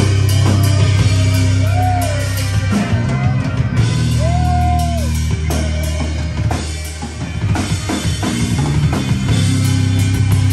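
Live rock band playing: drum kit, electric bass and electric guitar. In the middle a held high note bends up and back down twice. Around seven seconds the heavy low end drops out briefly, and the drums then come in with a run of hits.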